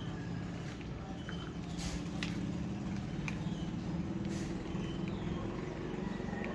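A motor running steadily with a low hum that swells slightly, with scattered sharp clicks and short high chirps over it.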